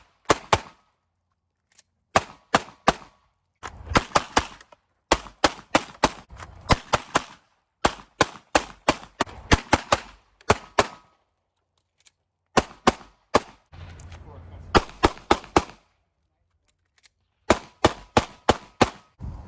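Semi-automatic pistol fired in rapid strings of several shots each, with pauses of about a second between strings.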